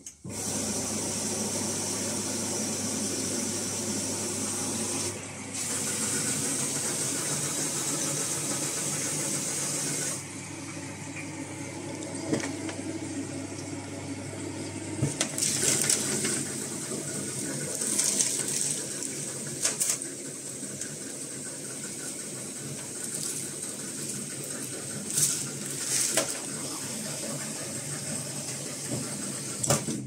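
Whirlpool AWE7516 top-loading washing machine running in service test mode. For about the first ten seconds there is a steady rush like water filling, with a low hum. The rest is quieter running with occasional clinks, as screws and tools are handled.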